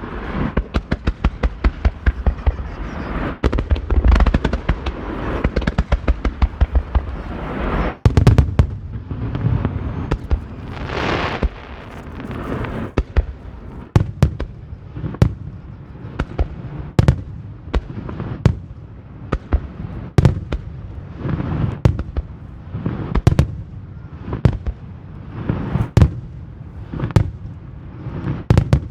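Aerial fireworks finale: a rapid barrage of cracking bursts for the first eight seconds, then a steady run of separate booming shell bursts about one a second, with a stretch of crackling midway.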